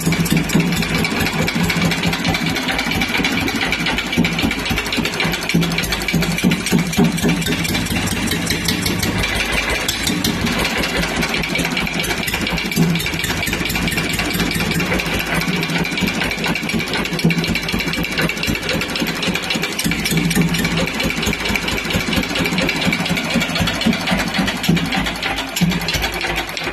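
Omnium type W single-cylinder stationary engine running steadily at idle on its very first start, with a fast, even firing beat.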